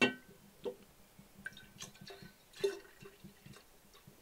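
Water-and-alcohol menstruum poured from a glass jug into a half-gallon glass mason jar, splashing and trickling in uneven spurts. A sharp knock, the loudest sound, comes right at the start.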